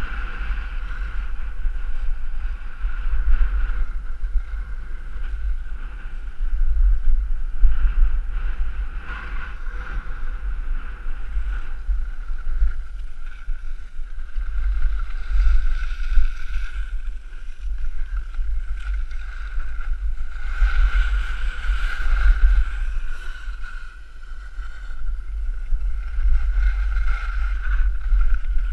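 Wind buffeting the microphone of a camera worn by a downhill skier, with the hiss and scrape of skis on packed snow swelling now and then through the turns.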